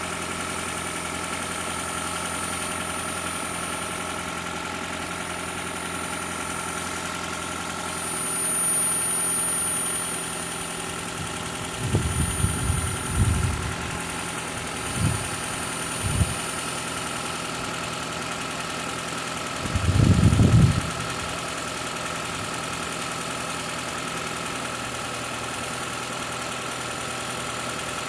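Toyota Prius 2ZR-FXE 1.8-litre four-cylinder engine, which has a knocking problem, running steadily during an oil pressure test. The level swells briefly about a third of the way in, and a few low thumps come near the middle, with a louder one about three-quarters of the way through.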